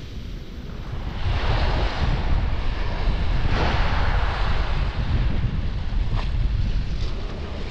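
Wind buffeting the microphone with a low rumble, over small waves washing onto a shingle beach; the wash swells about a second in and surges again a couple of seconds later.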